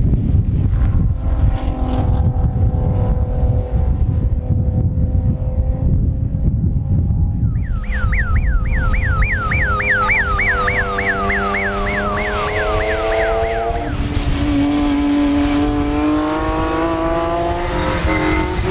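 Racing car engines running under strong wind buffeting on the microphone, their pitch rising as a car accelerates in the second half. For about six seconds midway, a high warbling tone sweeps up and down about four times a second.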